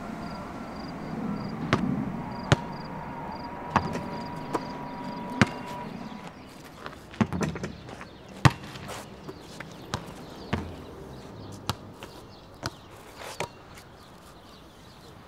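Basketball bouncing on a hard outdoor court: a dozen or so sharp, irregularly spaced thuds.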